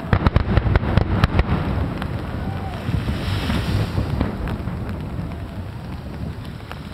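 Aerial fireworks: a rapid run of sharp cracks and pops in the first second and a half, then a low rolling rumble that slowly fades. Wind noise on the microphone.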